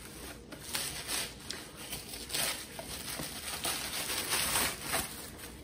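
Tissue paper crinkling and rustling by hand in irregular handfuls as a wrapped item is unwrapped.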